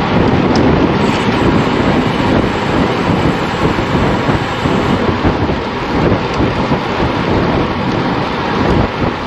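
Wind buffeting the microphone of a camera on a moving road bike: a loud, steady, rumbling rush that flutters throughout.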